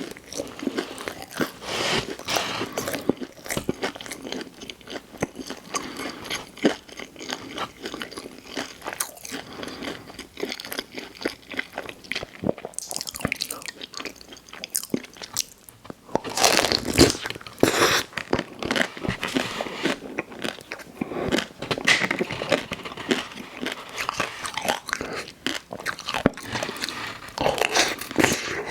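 Close-miked eating: a person biting and chewing food with crunchy, crackly mouth sounds, growing louder and denser for a couple of seconds past the middle.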